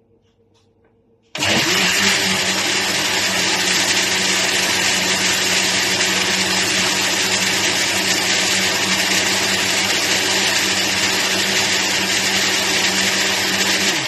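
Electric countertop blender switched on about a second in, running at one steady speed as it purées green vegetables, then switched off near the end and winding down.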